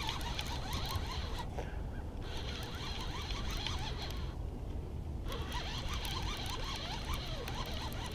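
Baitcasting reel being cranked, its gears whirring steadily under the load of a hooked channel catfish being reeled in. The cranking stops briefly twice, about one and a half seconds in and again around four seconds in.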